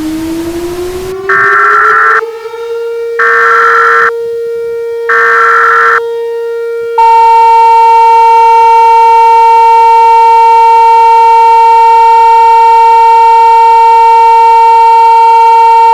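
Simulated Emergency Alert System alert sequence: a siren tone winds up and holds steady, three loud one-second bursts of digital SAME header data sound over it, and a loud, steady, buzzy attention tone joins about seven seconds in.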